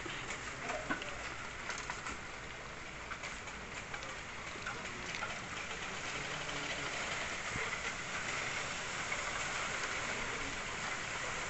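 Puppies lapping and chewing softened dog food from a shared bowl: scattered faint wet ticks over a steady hiss.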